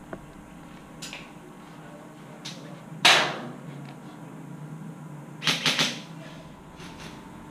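Airsoft gunfire: one sharp shot about three seconds in, then a quick burst of three shots about two seconds later, with a few fainter shots around them.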